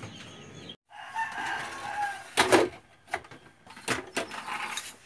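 A rooster crowing once, starting about a second in, followed by a few sharp knocks, the loudest just after the crow.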